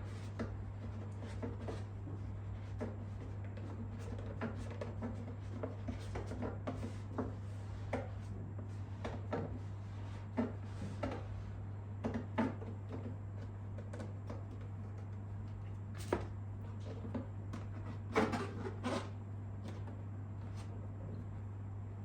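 Scattered light taps, clicks and rustles of a vinyl decal and a plastic motorcycle belly-pan fairing being handled and smoothed by hand, over a steady low hum.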